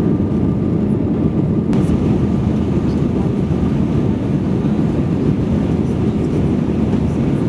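Airbus A319 jet engines and airflow heard inside the cabin during the climb: a loud, steady low noise with a faint steady whine above it. A faint click comes about two seconds in.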